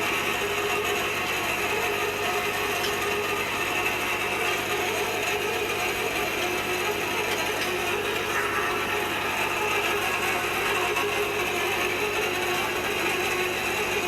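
Hand-driven hot-tapping machine cutting into a steel pipe: a steady, continuous mechanical grinding as the cutter is turned through the pipe wall.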